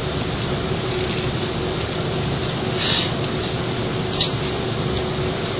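Steady low background hum with a couple of light plastic clicks as the layers of a 1x3x3 Super Floppy Cube are turned, one about three seconds in and a sharper one a little after four seconds.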